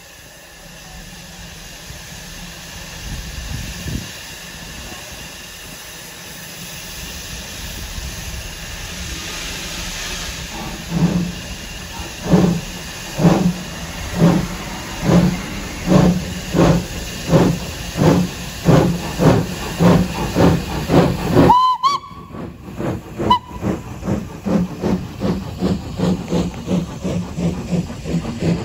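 Two steam locomotives pulling a train away: a steady hiss of steam builds over the first ten seconds, then loud, slow exhaust chuffs start at about one a second and quicken slightly. About two-thirds of the way through the sound breaks off suddenly, and quicker, softer chuffs follow.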